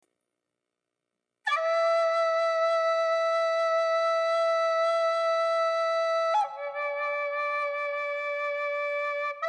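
Background music: after about a second and a half of silence, a flute-like instrument holds one long note, then moves to a lower note about six and a half seconds in.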